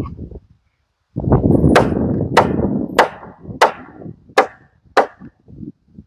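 Spikes being driven into rough-sawn lumber joists: a steady run of about six sharp strikes, roughly two every second and a bit, starting a couple of seconds in.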